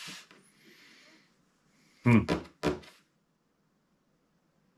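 A man's brief vocal sound, two short voiced bits about two seconds in, after a soft breath near the start.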